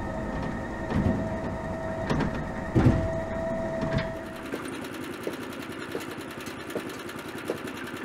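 Machine whine from a crane hoist lowering steel tetrapod mold sections on chains, over a low rumble with a few metallic clunks. The whine stops about four and a half seconds in, leaving a fainter steady hum with light ticking.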